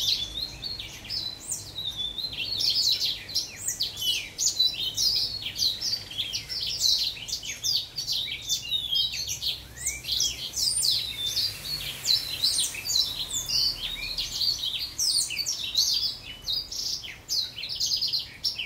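Young house finch singing a long, rapid warble of high notes with barely a pause.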